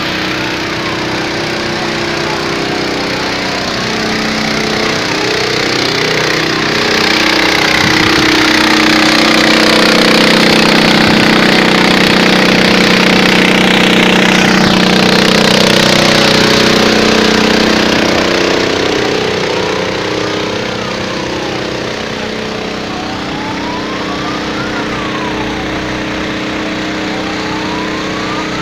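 Engine running steadily, getting louder through the middle and easing off again. A siren wails up and down in slow cycles at the start and through the last third.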